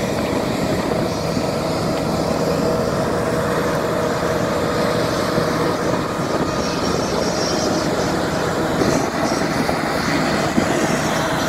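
Propeller-driven planes flying in formation, their engines making a steady, unchanging drone.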